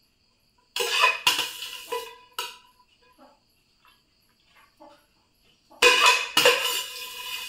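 Perforated stainless-steel skimmer spoon clattering and scraping against a cooking pot while spreading cooked basmati rice, in two bouts of several knocks with a short ring: one about a second in, one near the end.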